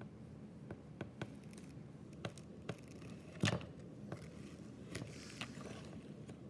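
Pokémon trading cards and their foil booster packaging being handled: scattered light clicks and scrapes, with a louder rustle about three and a half seconds in.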